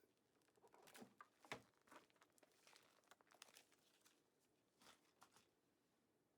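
Faint crinkling and rustling of plastic bags being handled, in short irregular bursts with a few light clicks.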